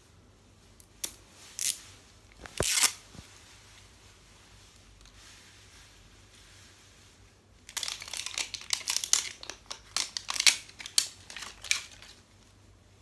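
Wrapping layer of an L.O.L. Surprise ball being peeled and torn off by hand. A few short rips come in the first three seconds, then after a pause a dense run of crinkling and tearing fills the last few seconds.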